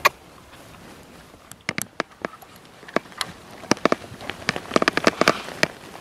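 Plastic spray bottles of fishing dip knocking against each other in a plastic bucket as they are rummaged through: a run of sharp clicks and clacks that comes thickest near the end.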